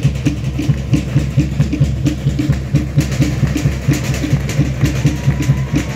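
Fast, steady drumming, about four to five beats a second, keeping an even rhythm throughout.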